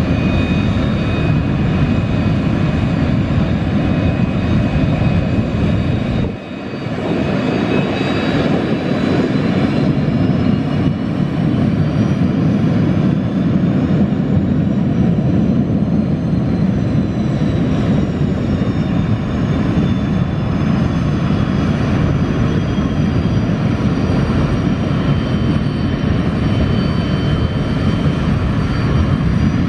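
Jet Provost T5's Viper turbojet running at low, taxiing power: a steady loud rush with a high turbine whine that drifts gently in pitch. The level dips briefly about six seconds in.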